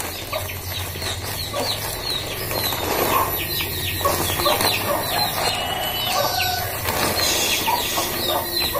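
Plastic bag of dry cat food crinkling as kibble is shaken out onto concrete, with birds chirping throughout.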